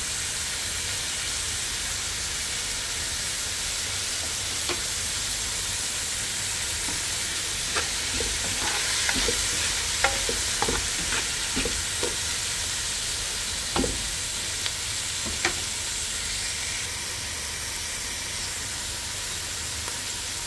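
Food sizzling steadily as it fries in a pan, with a cooking utensil knocking and scraping against the pan a dozen or so times around the middle as it is stirred.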